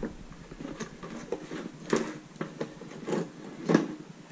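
Scattered clicks and light knocks of tools and parts being handled while a dirt bike is put back together, about eight in four seconds, the loudest near the end.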